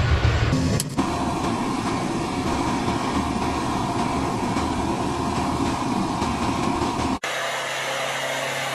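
Heavy military trucks carrying S-400 missile launchers running, a steady noisy rumble of diesel engines. The sound cuts abruptly to a different take about a second in and again near the end, where it settles into a steadier hum.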